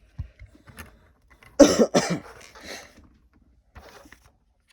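A man coughing twice in quick succession, a second and a half to two seconds in, with a few faint clicks around them.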